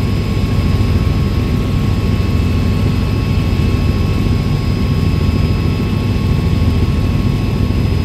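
Light helicopter in flight, heard from inside the cabin: a loud, steady drone of engine and rotor, with thin, steady high-pitched whines above it.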